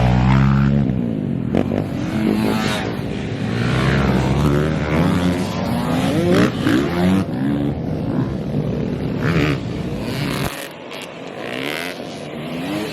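Pit bike engines revving, more than one at once, their pitch rising and falling as the riders blip the throttles and pull away.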